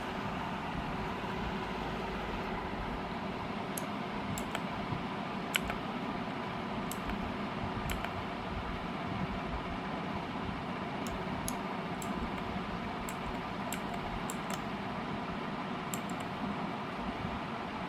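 Scattered, irregular key presses on an AULA S2022 mechanical keyboard, sharp clicks coming singly and in small clusters over a steady background hiss and hum.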